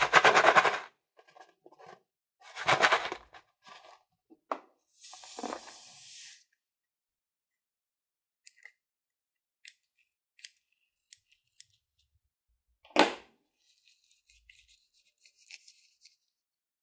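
Rubber balloon squeezed and rubbed in the hand, two loud rubbing bursts in the first few seconds, then a short hiss. Later come small scissor snips into the balloon and a sharp snap about thirteen seconds in. Near the end there is a faint rustle of metallic sequins in the palm.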